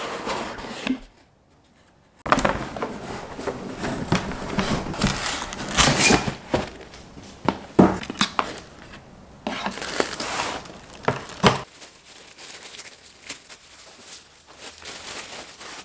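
Cardboard packaging and tissue paper being handled during an unboxing: paper crinkling and tearing and cardboard rustling, with a few sharp knocks. The handling grows quieter near the end.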